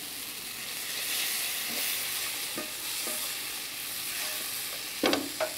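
Sauce sizzling in a pan on a gas hob while a spatula stirs and scrapes through it, with two louder knocks near the end.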